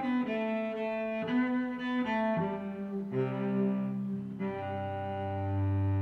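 Slow instrumental background music: a melody of held notes changing about once a second, with a deep low note coming in about three seconds in and held.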